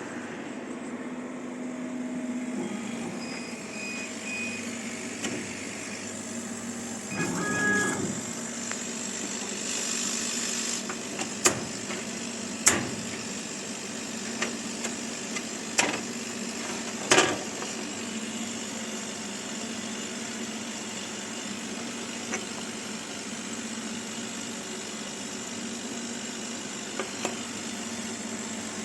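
KAMACH 6090 CO2 laser machine running: a steady hum of its fans and pumps, with a brief tone about seven seconds in and several sharp clicks in the middle.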